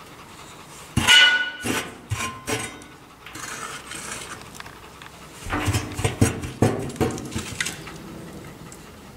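Metal clanking and scraping inside a home-built steel-drum smoker: a sharp clang that rings briefly about a second in, a few more knocks just after, then a cluster of knocks and scrapes around the middle.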